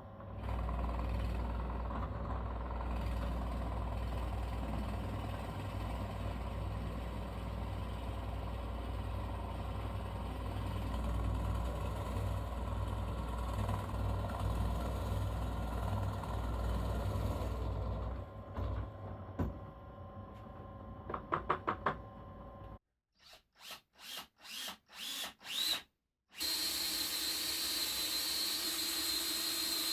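Workshop power tools at work, in edited snippets. A steady low hum runs for most of the first half. Short clicks and bursts follow, then choppy starts and stops, and near the end a steady whining power tool.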